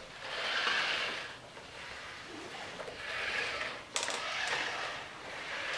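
Nao humanoid robot's joint motors whirring in three short spells as it moves its arms and legs on the floor, trying to get up after a fall, with a sharp click about four seconds in.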